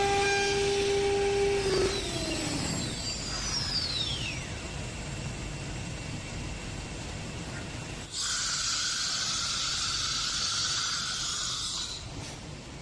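CNC router spindle whining at a steady high pitch, then switching off about two seconds in and spinning down with a falling whine. About eight seconds in, a loud pneumatic hiss of compressed air runs for about four seconds and cuts off.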